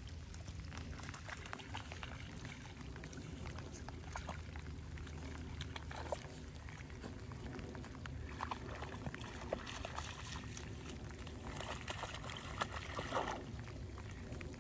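A young dog wading through shallow floodwater, with scattered splashes and sloshing that grow busier in the second half, over a steady low rumble.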